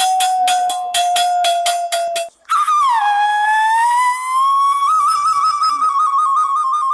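Whistled comic sound effect: a long whistle tone sliding slowly down, broken by rapid clicks about four times a second. It stops suddenly, and after a brief gap a second whistle dips, climbs back and then warbles.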